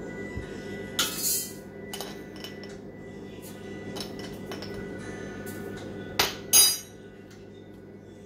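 A metal spoon clinks and scrapes against a metal Moroccan teapot and a glass jar as loose tea leaves are spooned into the pot. The loudest knocks come about a second in and twice around six and a half seconds in, over quiet background music.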